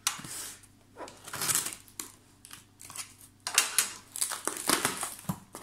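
Box cutter slicing through packing tape on a cardboard box, with the cardboard scraping and rustling as it is worked open. It comes in three bursts with short pauses between them; the longest and loudest starts about three and a half seconds in.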